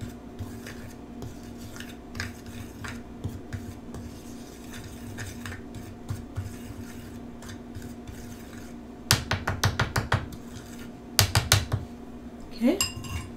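A metal utensil stirring seasoned flour in a small glass bowl, with faint scraping ticks. About nine seconds in, and again near eleven seconds, come two quick runs of sharp clinks of the utensil against the glass.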